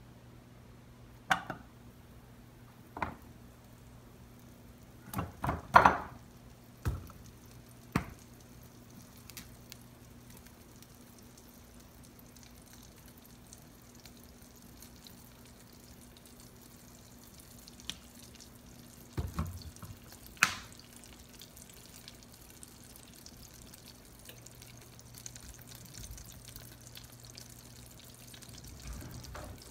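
Butter melting and bubbling faintly in a non-stick saucepan, with a few sharp clicks and knocks of a knife and bottle against the pan, the loudest about six seconds in and two more near twenty seconds. A low steady hum runs underneath.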